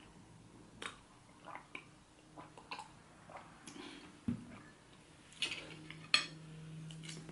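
Small scattered clicks, then a glass set down on the table with a dull knock about four seconds in. A spoon and fork then clink against a plate of fish soup, the sharpest clink about six seconds in.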